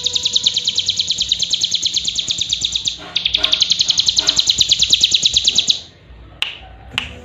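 A cigun (ciblek gunung, a small prinia kept as a songbird) sings a fast, even trill of sharp high chips, about ten a second, with a brief break about three seconds in. The trill stops about six seconds in, and a couple of sharp clicks follow.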